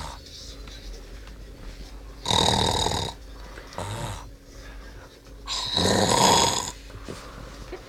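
A man snoring loudly, with two long snores each about a second long and about three seconds apart, and a weaker, shorter one between them.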